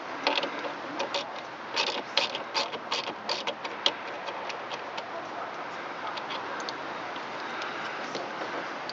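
Sharp, irregular metallic clicks and clinks of hand tools working the nut on a golf cart solenoid's terminal stud, thick for the first four seconds, then sparser.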